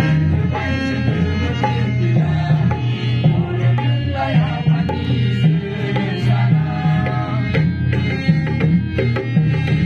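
A group singing a song into a microphone, accompanied by an acoustic guitar, over a steady repeating beat.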